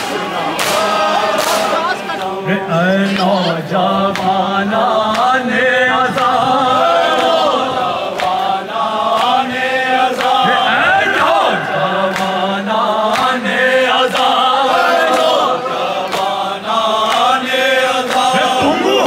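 Group of men chanting a noha, a Shia mourning lament, together in unison. A few sharp beats sound in the first second or two.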